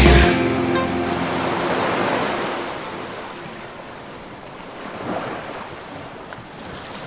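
Small lake waves washing in on a sandy shore, a steady wash of water that swells a little now and then, while the last of the music rings out over the first couple of seconds.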